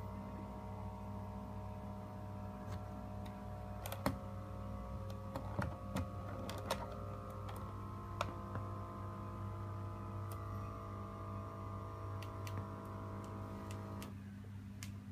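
Omron T5 blood pressure monitor's small electric air pump running steadily as it inflates the cuff, stopping about a second before the end when the cuff reaches full pressure. A few sharp clicks sound over it.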